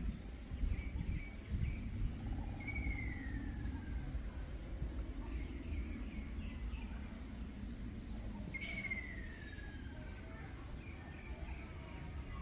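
Ruddy kingfisher giving its descending trilled call twice, each call falling in pitch over about a second and a half, some six seconds apart. Faint high chirps of other small birds and a low steady rumble sit underneath.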